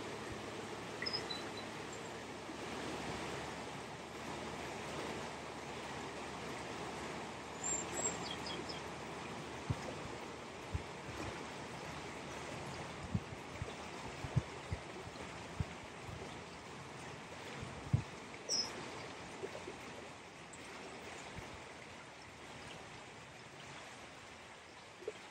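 Steady rush of flowing water, a stream running through a ford, with a few short dull thumps around the middle and faint high chirps.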